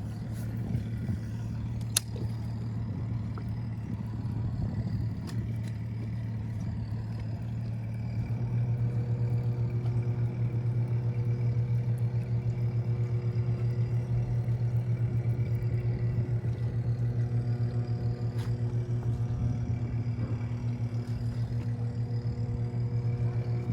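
Boat motor running with a steady low hum, which grows louder and fuller about eight seconds in.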